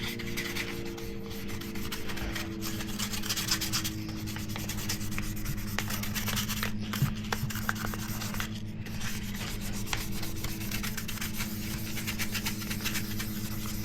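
Sandpaper rubbed by hand in rapid, steady back-and-forth strokes over a polycarbonate camera dive-case lens, sanding out scratches, with a steady low hum underneath.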